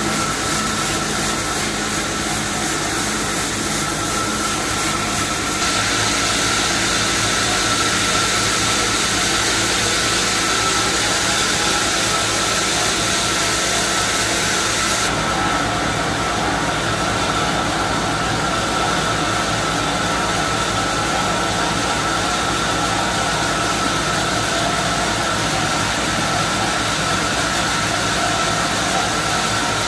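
Sawmill running while splitting a freshly cut mahogany log, a loud steady machine noise with a steady high whine over it. The sound shifts about five seconds in and again about fifteen seconds in.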